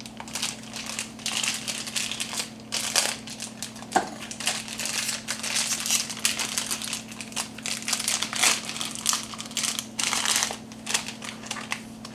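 Packaging being unwrapped by hand around a coffee maker's water filter: irregular crinkling and rustling throughout, with a sharp click about four seconds in.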